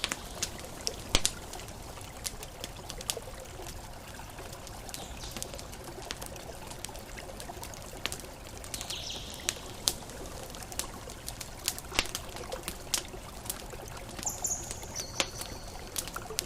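Campfire crackling with many sharp pops over a steady wash of water. Brief high chirps come in twice, about nine seconds in and near the end.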